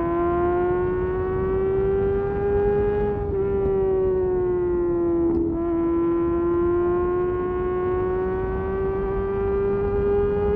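Kawasaki ZX-6R's inline-four engine held at high revs, its high-pitched note climbing slowly, easing off briefly a few seconds in, then climbing again.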